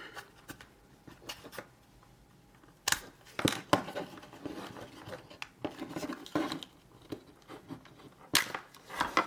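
3D-printed plastic parts of a ball pump mechanism being opened up and handled: scattered sharp clicks and knocks with softer rubbing between them. They begin about three seconds in, with a cluster near the end.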